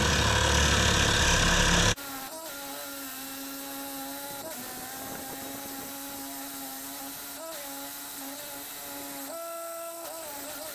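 Chicago Electric electric drill bit sharpener's small motor running with a steady buzzing whine as a drill bit is ground in its sharpening port. A louder rushing noise cuts off abruptly about two seconds in. Near the end the pitch briefly steps up and a rasp comes in.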